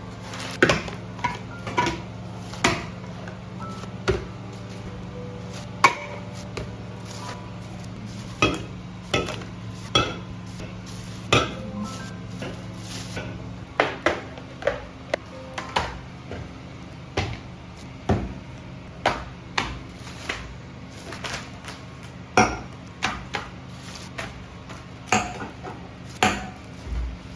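Kitchen clatter: irregular knocks and clinks of dishes, utensils and other items being handled and set down on a hard surface, one or two a second.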